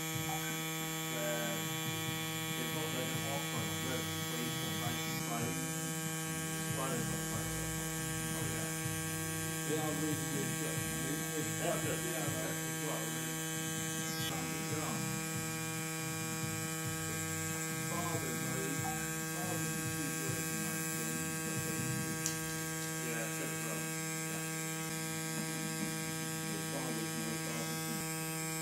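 Xion rotary tattoo pen running steadily with a constant electric hum as its needle lines skin.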